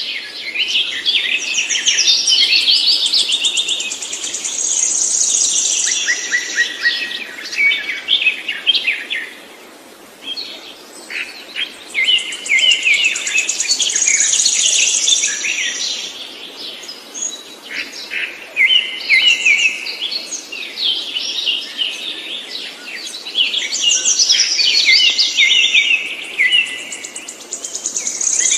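A songbird singing long, varied songs of rapid trills and chirps, in phrases several seconds long broken by short pauses.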